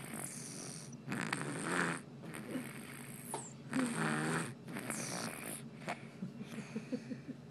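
Sleeping baby snoring, a rasping snore with each breath; the loudest snores come about a second in and about four seconds in, with softer breaths between.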